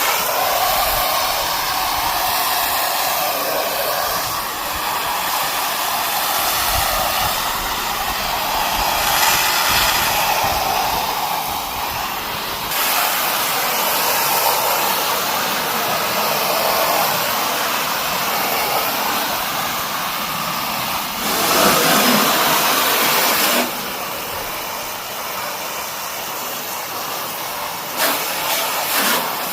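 Pressure washer jet spraying water onto house siding: a steady hiss of spray that swells louder for about two seconds near the end.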